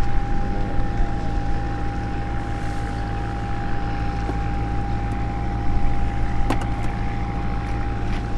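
Boat engine idling steadily: an even low hum with a constant high whine over it. A few light knocks, from fish being handled in plastic crates, come through on top.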